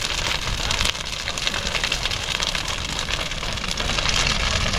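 Large bonfire crackling steadily, many small snaps over a continuous low rumble.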